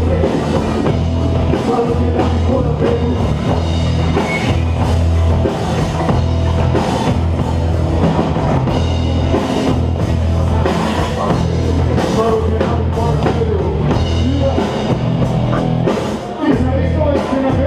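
Live rap-rock band playing loud through a PA: drum kit, electric guitar and bass guitar with a heavy low end, dipping briefly near the end.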